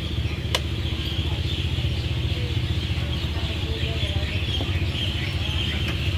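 A steady low engine hum with a constant high hiss behind it, and a single sharp click about half a second in.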